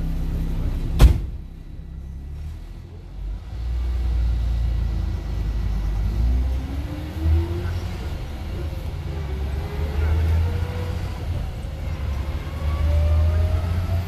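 Iveco diesel engine and manual gearbox heard from the cab during gear changes: a sharp clunk of the shift lever about a second in, the engine dropping away briefly, then pulling again with a rising whine as the vehicle gathers speed, with another knock about seven seconds in.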